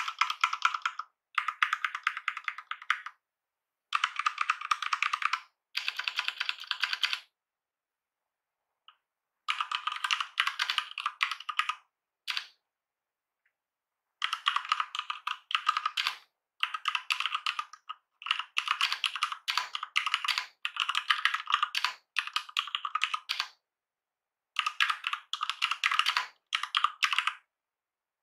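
Typing on an Asus ROG Falchion Compact 65% keyboard with Cherry MX mechanical switches and PBT doubleshot keycaps. The keystrokes come as rapid clattering runs lasting a second or two each, with short silent pauses between runs.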